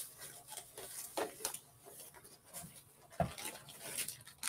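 Scattered rustling and light knocking from handling things, with one louder thump about three seconds in.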